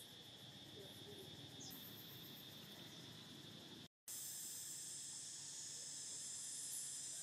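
Steady high-pitched chorus of insects. It breaks off for an instant about four seconds in, then goes on a little louder.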